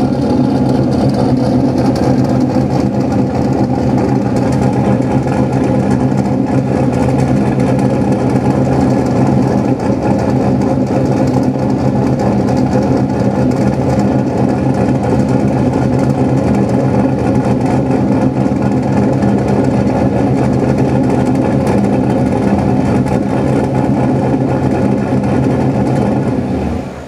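Car engine with headers idling steadily, its exhaust joints freshly sealed with exhaust sealant and being checked for leaks. The sound cuts off suddenly near the end.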